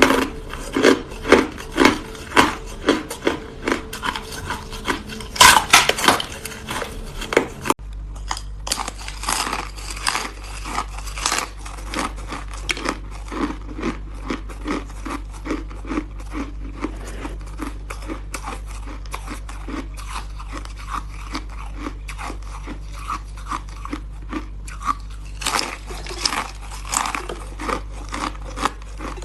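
Close-up crunching of hard frozen cola ice being bitten and chewed, loud crunches about two a second. About eight seconds in the sound cuts abruptly and a low steady hum comes in, with quieter, rapid crackling chewing over it that grows louder again near the end.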